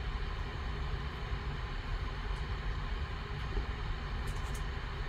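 Steady low background hum. A few faint light clicks near the end as rigid plastic card holders are handled.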